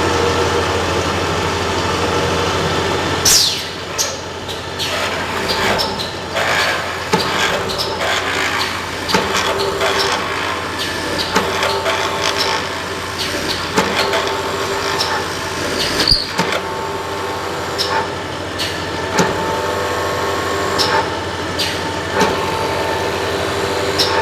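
Steady mechanical hum with frequent sharp clanks and clicks throughout.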